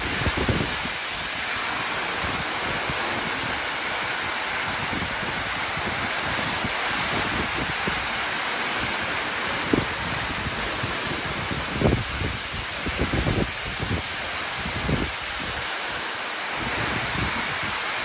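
A tall waterfall, its water pouring down a sandstone cliff onto a rock ledge and pool, making a steady, loud rushing hiss. A few low thumps of wind buffeting the microphone come through in the middle stretch.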